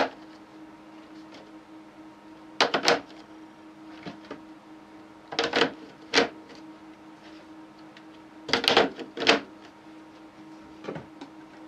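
Plastic trays of an Ezidri food dehydrator being set down one onto another: clattering knocks in three main clusters a few seconds apart, with a lighter knock near the end.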